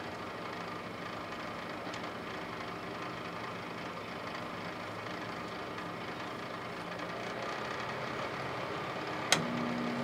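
Microwave oven running with a steady hum, an artichoke cooking inside; a single sharp click comes near the end.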